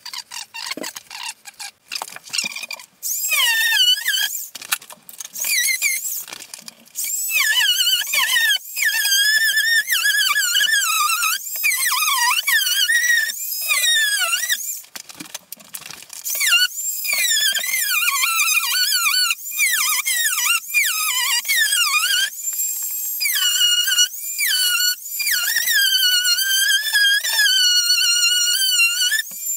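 Fast-forwarded soundtrack: voices sped up into high-pitched, squeaky chipmunk-like chatter, broken by short gaps.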